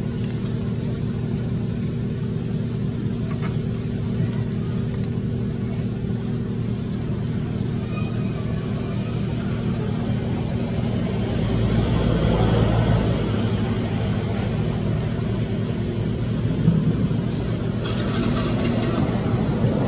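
A steady engine-like hum with a thin, constant high whine above it, swelling slightly about twelve seconds in.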